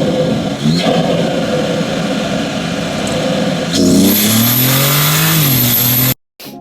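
Car engine running loudly, then revving up about four seconds in and easing back down, with a high thin whine joining it. The sound cuts off abruptly near the end.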